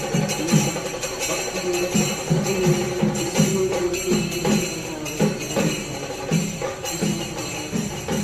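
Music with a steady drum beat, about two beats a second, over continuous jingling percussion like a tambourine and a held melody note.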